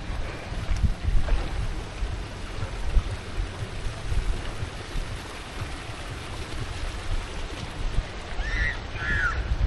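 Wind buffeting the microphone, an uneven low rumble throughout. Near the end, two short high chirps.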